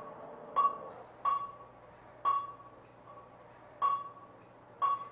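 Hospital heart monitor beeping about once a second, each beep a short high ping with a brief ringing tail, the spacing slightly uneven as it follows the patient's heartbeat.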